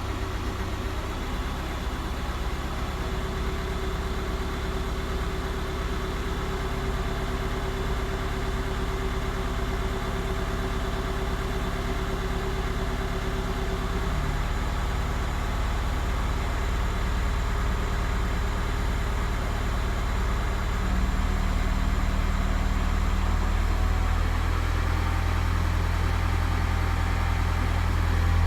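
Skoda Octavia A5 1.9 TDI four-cylinder unit-injector diesel engine idling steadily, with the engine knock its owner is chasing. It grows louder about 21 seconds in.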